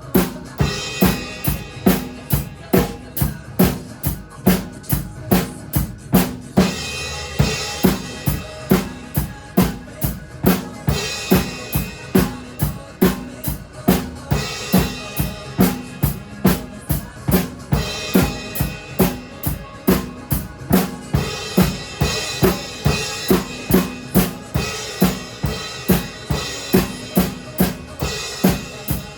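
Drum kit played in a steady rock beat, bass drum and snare strokes about twice a second, over a pop backing track. Cymbals wash in and out in stretches.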